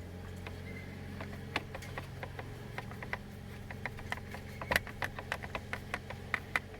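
Steady low hum under a run of short, sharp clicks and ticks at uneven spacing, growing more frequent and louder from about four seconds in: hand work fitting the screws of the plastic steering-column cover.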